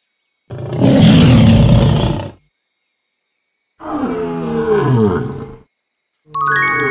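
Lion roaring: a loud, rough roar lasting about two seconds, then two shorter calls that fall in pitch. A bright chime comes in near the end.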